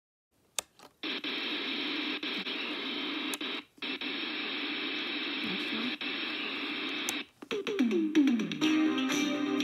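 A toy TV's small speaker playing a steady static hiss, with a click just before it and a brief break partway through. Near the end the hiss gives way to music with a downward-sliding tone and guitar.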